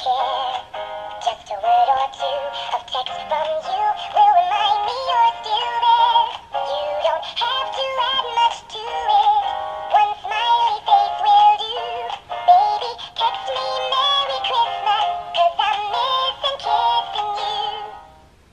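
Gemmy animated dancing Christmas squirrel toy playing its Christmas song: a high-pitched singing voice over a tune, thin with almost no bass, stopping abruptly near the end.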